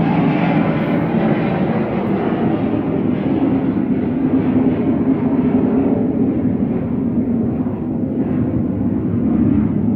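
Loud, steady rumble of a large vehicle engine outside, drowning out speech.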